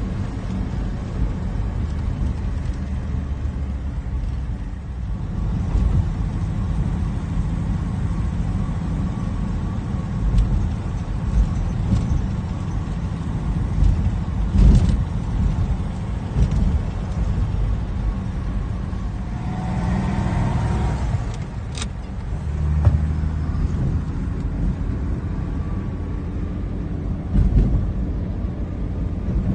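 Cabin of a 1951 Pontiac FleetLeader Deluxe on the move: steady low engine and road rumble, with a few brief knocks along the way.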